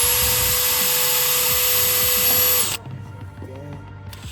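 Cordless drill driving a screw to fasten a hood latch: the motor spins up with a quick rising whine, runs steadily for about two and a half seconds, then stops abruptly.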